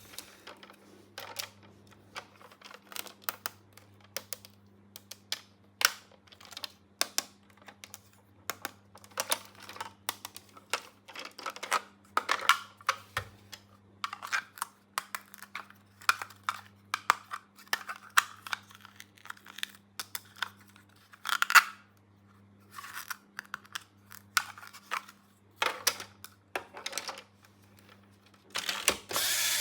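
Small plastic toy playset pieces and packaging being handled by hand: a quick, irregular run of clicks, taps and short rustles, over a faint steady hum.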